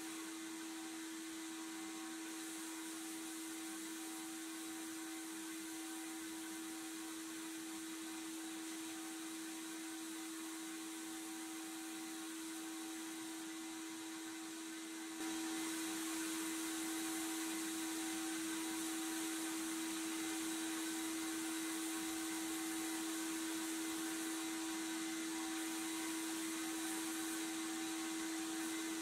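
Sandblasting cabinet in use: a steady hiss of air and abrasive from the blast nozzle over a steady hum, stripping a pressed-steel toy car chassis to bare metal. The hiss steps up louder about halfway.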